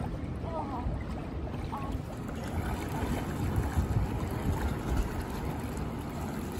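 Wind buffeting the phone's microphone: a steady low rushing noise, with a few faint, short high-pitched sounds in the first two seconds.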